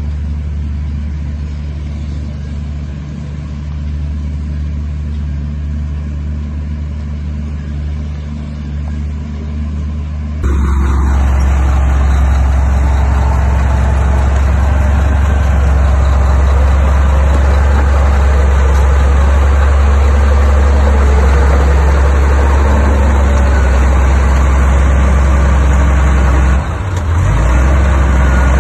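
Heavy diesel engine of earthmoving equipment running with a steady deep drone. About a third of the way in it cuts abruptly to a louder, noisier engine sound that holds steady, with a short dip near the end.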